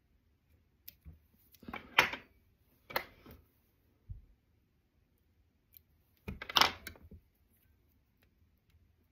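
Hands working at a fly-tying vice: a few short scratchy handling rustles and clicks, the loudest about two and six and a half seconds in, with a dull knock around four seconds.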